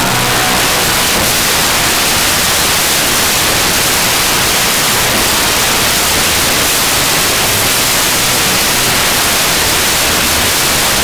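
Loud, steady hiss of static, like white noise, with no clear beat or separate bangs.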